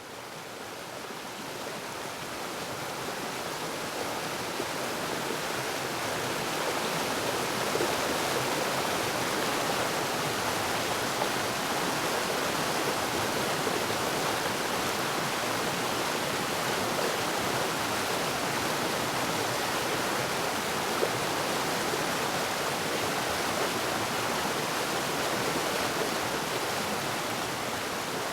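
Waterfall water rushing in a steady, even roar of noise, swelling up over the first several seconds and then holding constant.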